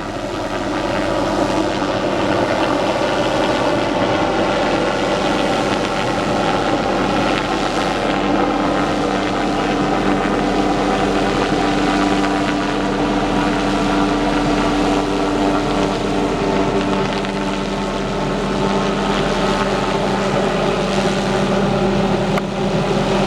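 Hughes 500D light helicopter's turboshaft engine and rotors running, a loud steady drone with a constant hum over a rushing wash; it builds slightly over the first second or two, then holds level.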